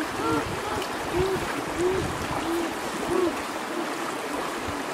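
Shallow stream running over rocks, with a series of short hooting calls on top, about one every half second to a second.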